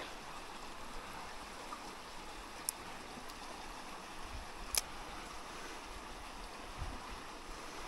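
Faint, steady rush of flowing creek water, with two brief sharp clicks, one a little under three seconds in and one just under five.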